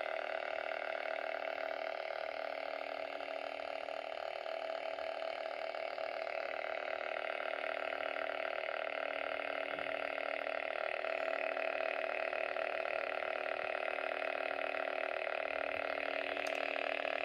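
Force FX Obi-Wan Kenobi Episode III toy lightsaber giving its steady electronic idle hum from the speaker in its hilt, the blade lit and not being swung.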